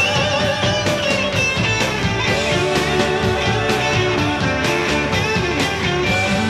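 Rock band playing live: electric guitars, bass guitar and drums, with drum hits at a steady beat and bending guitar notes.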